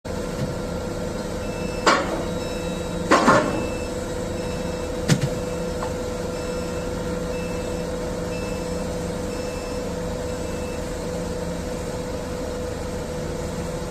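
XCMG truck crane working: its engine runs steadily with a held whine over it, while a warning beeper sounds in short beeps about once a second. Sharp knocks come about two, three and five seconds in.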